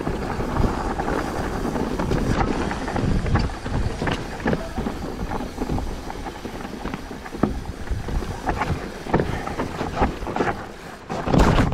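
Mountain bike riding down a trail: tyres rumbling over the rough surface and the bike rattling and knocking over bumps, with wind buffeting the microphone.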